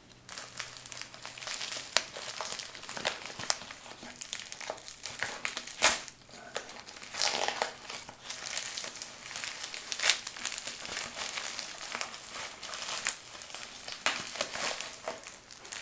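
A padded bubble mailer and plastic packaging crinkling and crackling as they are handled and opened by hand, with many sharp, irregular crackles.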